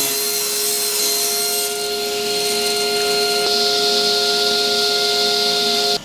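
Table saw running with a steady whine, its blade cutting through wood with a dense rasping hiss.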